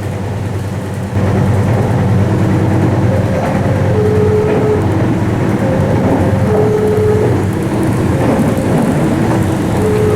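Steady rumbling hum of an N-gauge model train running on its track, with a slow tune of single short notes over it. The sound gets louder about a second in.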